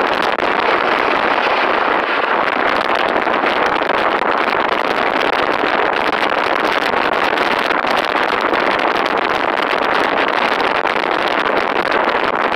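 Steady rush of wind and road noise from a moving vehicle.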